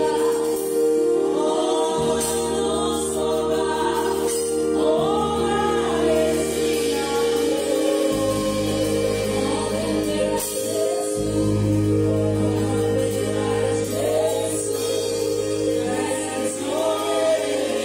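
A woman singing a slow worship song, accompanying herself on a Yamaha electronic keyboard with sustained chords. A deep bass note comes in about eight seconds in.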